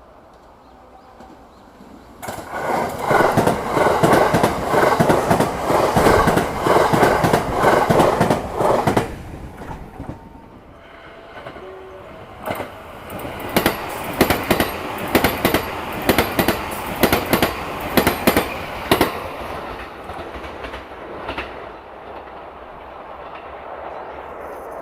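A train passing at speed, its wheels clacking rapidly over the rail joints. The clatter starts suddenly about two seconds in and is loudest for the next several seconds. It eases off, then a second run of sharp clacks follows before it fades.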